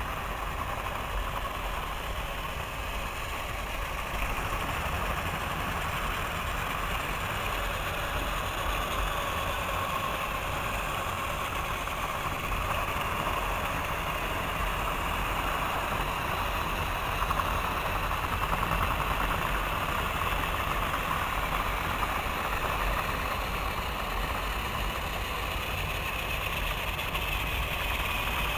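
Battery-powered Thomas & Friends toy trains running on plastic track: the steady whir of their small electric motors and gears, with wheels and coaches rolling over the track joints.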